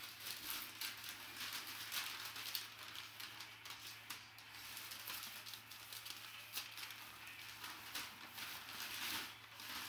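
Brown kraft packing paper rustling and crinkling as it is handled and pulled off a wrapped basketball, a continuous run of small crackles.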